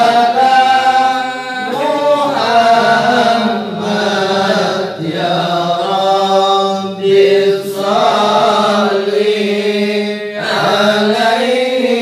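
A group of men chanting Arabic sholawat in unison over microphones, singing long, held, wavering melodic lines with short breaks between phrases.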